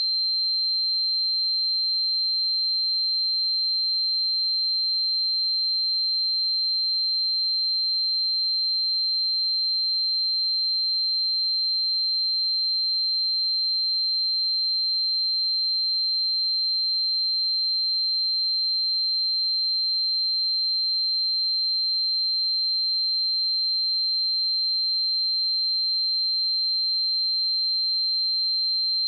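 A pure 4138 Hz sine-wave test tone, one high steady pitch held without change at an even level.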